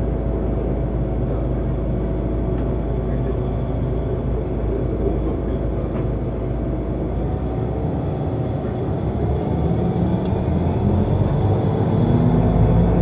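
Solaris Urbino 12 city bus engine running at idle; in the second half its note rises in pitch and grows louder.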